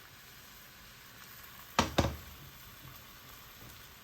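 Crepe batter sizzling faintly in a buttered frying pan, a steady hiss, with two sharp knocks close together a little under two seconds in.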